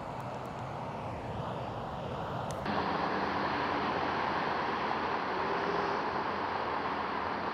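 Steady background ambient noise, first as picked up by a lavalier mic alone, then, after a sudden switch about three seconds in, as reproduced through the Poltact PTH-V2 headset's ambient hear-through microphones. Through the headset it becomes a little louder and stronger in the midrange, with the highest treble cut off.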